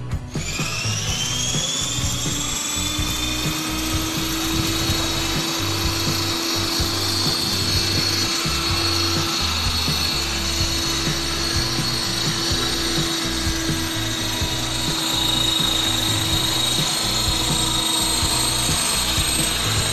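500-size RC helicopter's motor and rotor head whining as it spools up, the pitch rising over the first couple of seconds, then running at a steady high whine.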